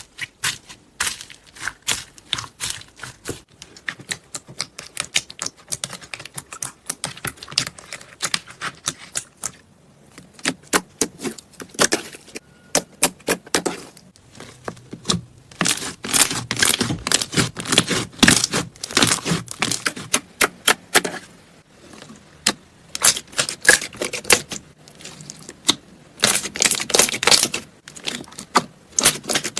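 Slime being pressed and squeezed, giving rapid crackling clicks and pops in bursts with short pauses between them.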